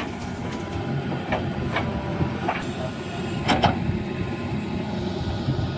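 Heavy machinery engine running steadily, with several sharp metallic clanks and squeaks, the loudest a pair about three and a half seconds in.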